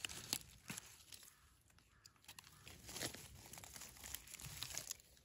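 Dry fallen leaves rustling and crackling as a gloved hand pushes through the leaf litter, in faint, irregular crackles.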